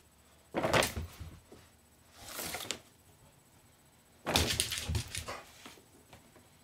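Brown paper shopping bag rustling and crinkling as a dog noses into it and it is handled, in three bursts: about half a second in, a softer one around two and a half seconds, and a longer one about four seconds in, the first and last with dull thumps.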